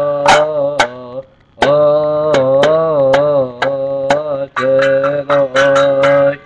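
A man singing a slow melody with long, wavering held notes and brief breaks between phrases, over a steady low accompaniment.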